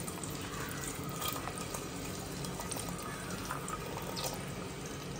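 Chopped onions sizzling in hot oil in a pressure-cooker pot as they go into the tempering: a steady sizzle with a few small ticks.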